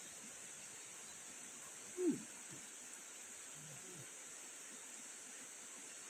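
Steady high-pitched drone of forest insects. About two seconds in, a brief low sound that falls in pitch, with two fainter ones near four seconds.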